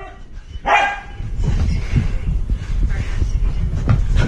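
Low, dull thumps and rumbling of movement as a husky runs about and the phone is swung along, with a brief voice-like sound about a second in.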